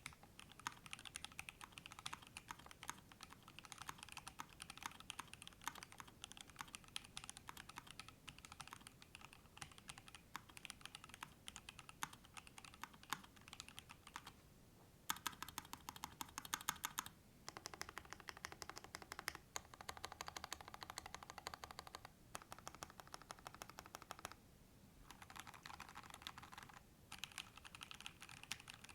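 Typing on a kc_orange_60 60% mechanical keyboard fitted with lubed and filmed Alpaca linear switches: a fast, continuous run of keystrokes, broken by short pauses about halfway through and twice near the end.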